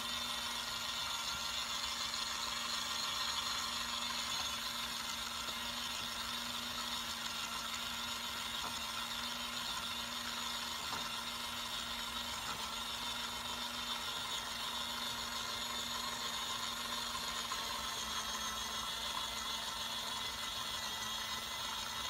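Mini beauty-sponge washing machine, a toy-sized washer powered by two AA batteries, running steadily with a sponge in soapy water in its drum. Its small electric motor hums at one even pitch.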